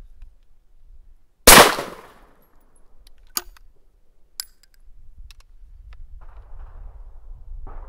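Single-shot break-action shotgun firing once about one and a half seconds in, the blast dying away over about a second. Two sharp clicks follow a couple of seconds later as the action is broken open and the spent shell is ejected.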